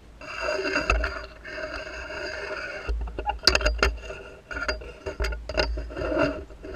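Handling noise right at the microphone: scraping and rubbing, with a quick run of sharp clicks and clinks in the middle.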